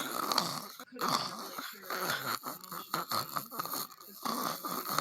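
A person snoring: a run of snores broken by short gaps.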